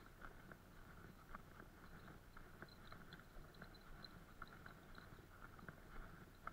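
Faint footsteps crunching in snow, an even run of short crunches about three a second, from a person walking along a snow-packed trail.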